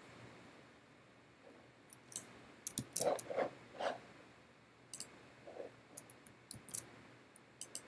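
Irregular clicks of a computer mouse and keyboard keys, about a dozen short sharp clicks, some in quick clusters about three seconds in and again near the end.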